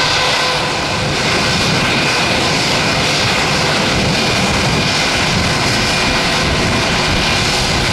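Airbus A320's jet engines running at low taxi thrust: a steady rumble and hiss with a faint high whine.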